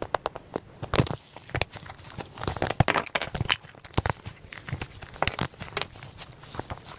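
Floam slime (slime packed with tiny foam beads) being squeezed and squished by hand, giving a dense, irregular run of crackles and pops.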